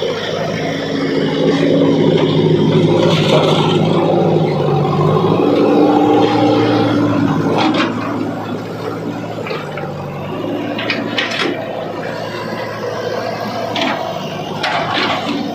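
Diesel engine of heavy machinery (backhoe loader or tractor) running under load, louder for several seconds, then easing back, with a few short metallic clanks later.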